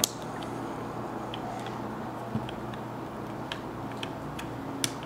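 Scattered clicks and light knocks of a Mamiya RB67 motor drive film back being handled, with a sharp click as its AA battery holder is pressed into place at the start and another sharp click near the end.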